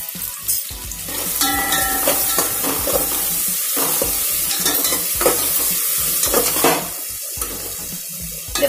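Sliced onions sizzling in hot oil in an aluminium pot, with a metal spoon stirring and scraping against the pot. The frying is a little quieter about seven seconds in.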